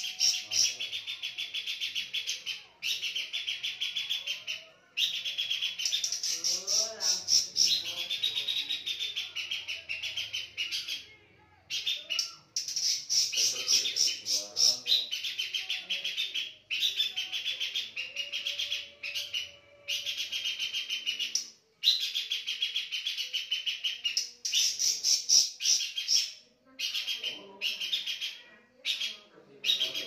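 Caged pelanduk semak, a babbler, singing continuously: fast trilled phrases of about two seconds each, repeated over and over with only brief pauses.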